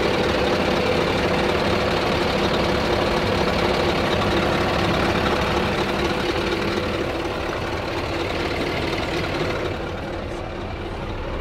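Scania R truck's diesel engine idling steadily. It grows slightly quieter and duller in the last few seconds as it is heard from inside the cab.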